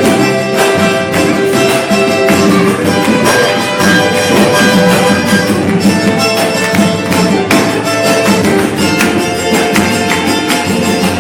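Samba group playing: hand percussion such as tambourine keeps a steady beat under plucked strings.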